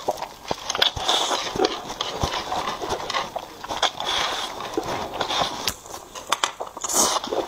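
Close-miked slurping and chewing of saucy noodles: a steady run of wet smacking clicks and sucking slurps.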